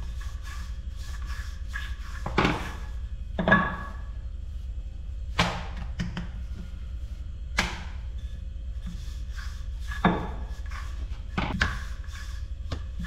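Wooden rolling pin rolling out a large sheet of soft samosa-wrapper dough on a countertop: scattered wooden knocks and rolling strokes, about six louder ones, the loudest about three and a half seconds in, over a steady low hum.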